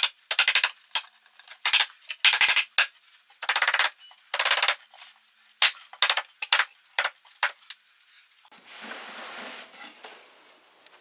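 Knocks and clattering rattles of particleboard furniture panels being handled and pressed together onto their connecting pins, many sharp impacts in quick, irregular succession, then a softer rustling stretch near the end.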